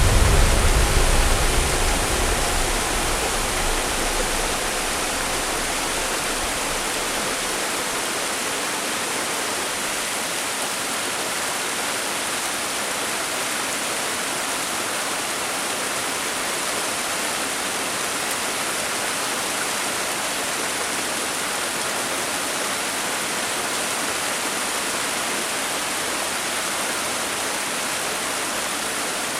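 A steady, even rushing hiss of noise that holds unchanged throughout. A deep low rumble fades out over the first few seconds.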